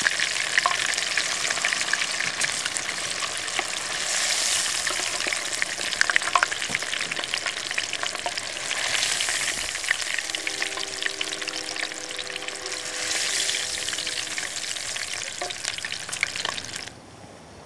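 Breaded catfish strips deep-frying in canola oil heated to about 350°F, a dense steady sizzle full of small crackles and pops. The sizzle cuts off suddenly near the end.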